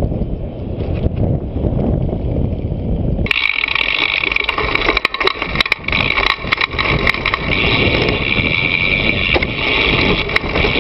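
Mountain bike rolling fast down a dirt trail, heard from a camera mounted on the bike: low wind and tyre rumble, then, after an abrupt cut about three seconds in, a steady high buzz with many sharp rattling clicks from the bike.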